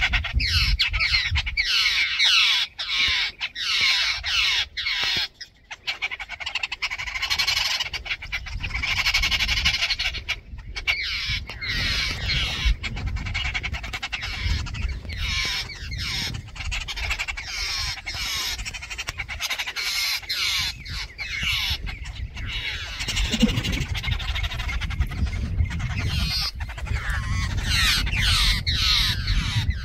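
A flock of babblers calling in a continuous, overlapping chorus of harsh, scolding chatter, with a few short pauses, typical of two rival flocks quarrelling.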